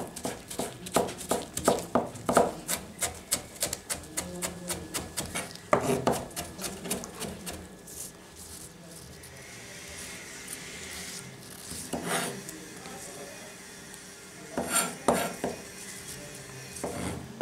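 Kitchen knife chopping vegetables on a plastic cutting board: a quick, regular run of blade strikes, about three to four a second, through the first half, then a quieter stretch, with a few more chops near the end.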